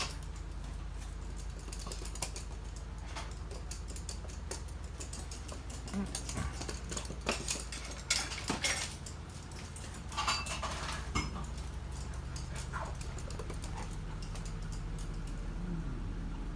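Two toy poodles playing with stuffed toys: scattered light clicks and scuffles, a few briefly louder, over a steady low hum.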